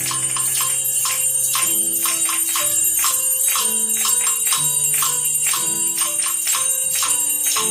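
Children's noise orchestra playing: tambourines and jingle bells struck and shaken on a steady beat over a sustained melody accompaniment.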